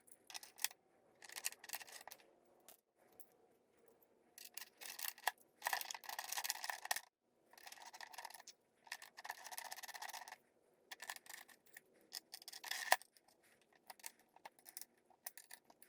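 Small metal parts of a digital readout's mounting bracket being handled and fitted together by hand: irregular scrapes and rubs with scattered clicks, and one sharper click late on.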